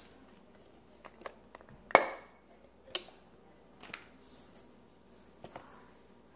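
Sharp plastic clicks and taps as the Bug-A-Salt 2.0's clear salt-hopper lid is flipped open and a salt canister's spout is handled over it, the loudest click about two seconds in. Then a faint hiss of table salt being poured into the hopper.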